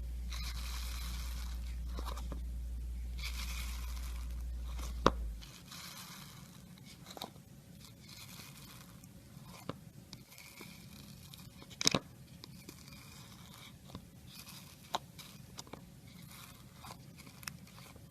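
Slime being squeezed and pressed by hand: several stretches of crackly noise broken by sharp clicks and pops, the loudest about five seconds in and again near twelve seconds.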